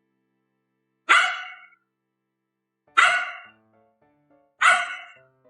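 Three loud, sharp animal calls, one about every second and a half to two seconds, each fading over about half a second, over faint background music.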